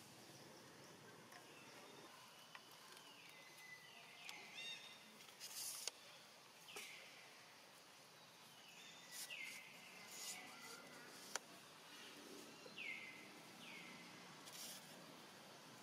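Faint forest sound: short high calls that fall in pitch, mostly in pairs, repeated several times. Brief high buzzes and a few sharp clicks come in between.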